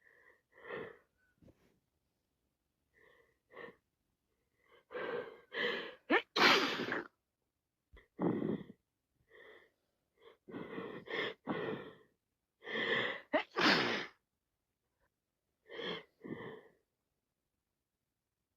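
A person with a head cold in sneezing fits: short catching, gasping breaths build up to loud sneezes. The loudest come about six and a half and fourteen seconds in, each after a run of quicker gasps.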